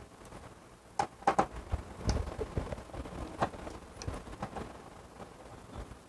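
Screwdriver working screws out of the plastic board cover in a washing machine's top panel: irregular small clicks and light knocks of the tool on screws and plastic, busiest from about one to two and a half seconds in.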